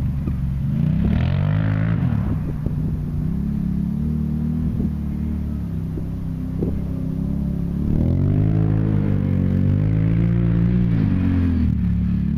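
2012 Can-Am Renegade 1000 ATV's V-twin engine revving, its pitch rising and falling with the throttle. It grows louder about two-thirds of the way through as the quad comes closer.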